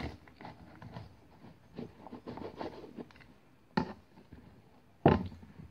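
A knife cutting through a crumbly loaf of semolina bread, a run of soft scrapes and crackles, followed by two louder sharp knocks about four and five seconds in as the slice is worked free.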